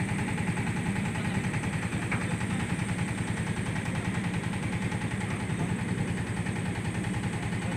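A boat's engine idling steadily, with a fast, even throb.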